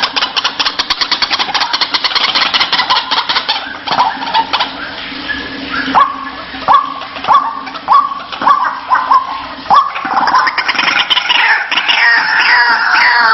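White-breasted waterhen calling: a fast rattling chatter, then a run of loud, sharp 'kruak' notes about two-thirds of a second apart, building into dense overlapping calls near the end.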